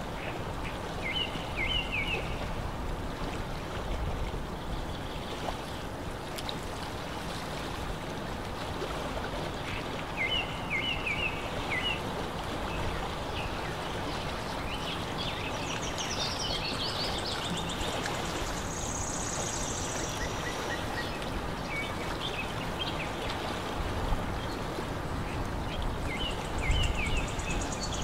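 Lakeside ambience: a steady wash of rippling lake water, with a small bird repeating the same short chirping phrase three times and a thin, higher-pitched bird trill around the middle.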